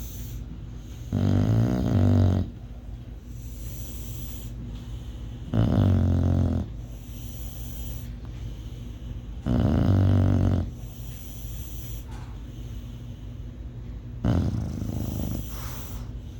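Bulldog snoring: four loud snores, each about a second long, coming about every four seconds.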